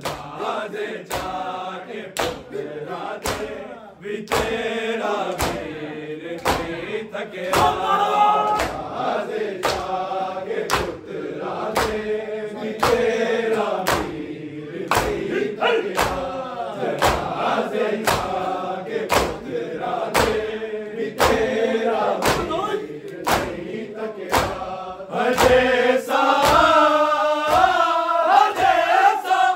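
A men's congregation chanting a Punjabi noha in unison, with the sharp slaps of matam chest-beating keeping a steady beat of a little under one and a half strokes a second. The chanting swells louder about three-quarters of the way through.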